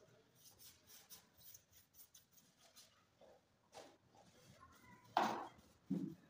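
A hand wiping and rubbing over a sanded teak tabletop in faint, quick strokes, then a louder brief scraping rustle about five seconds in and a dull knock just before the end.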